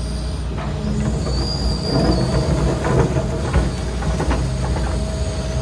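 John Deere 245 excavator's diesel engine running under digging load while the bucket scoops sand and gravel. A brief high whine comes about a second and a half in, followed by a couple of seconds of scraping and knocking as the bucket works the trench.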